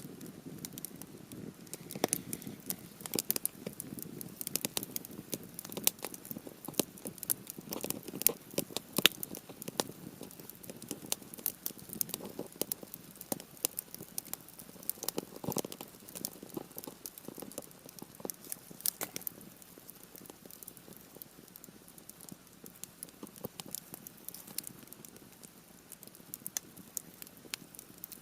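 Campfire of partly dried cedar wood crackling and popping, a dense run of sharp snaps that thins out over the last third, over a soft low hiss.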